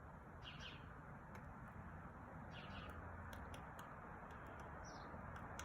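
Three short bird chirps about two seconds apart, with scattered faint sharp taps of a woodpecker pecking, over a steady background hiss.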